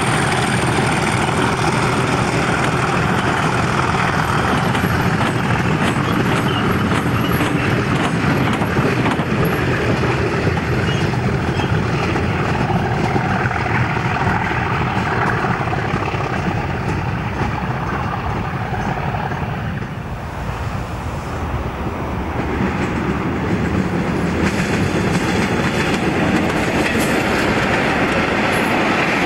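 Diesel-hauled freight train passing close by, a Class 37 locomotive followed by its loaded wagons: a steady rumble with the wheels clattering over the rail joints. The sound dips briefly about two-thirds of the way through, then picks up again.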